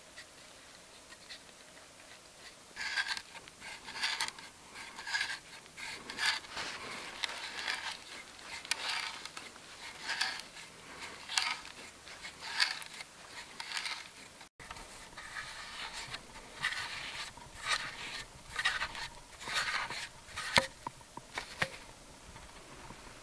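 A homemade hand auger, a steel auger bit turned by a wooden crossbar handle, boring into a log. Each twist of the handle gives a short scraping, crunching cut as the bit chews out wood shavings, about once a second.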